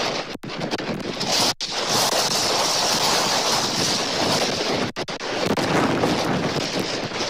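Tropical-storm wind blowing across the nest cam's microphone: a steady, dense rushing noise that rises and falls with the gusts. The sound cuts out for an instant three times.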